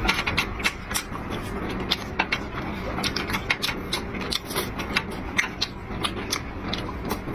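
Close-up eating noises: many irregular sharp clicks and smacks of chewing and of utensils, over a steady background din.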